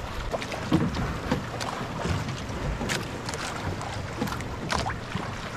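Water lapping and splashing against the hull of a small outrigger boat on choppy sea, with wind on the microphone and scattered small clicks and knocks.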